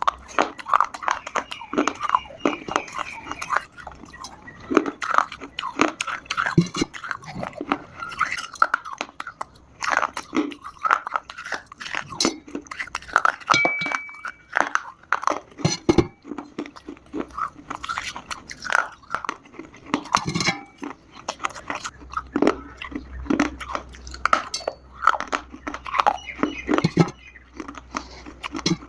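Dry chunks of Multani mitti (fuller's earth clay) being bitten and chewed, with a steady run of sharp, irregular crunches.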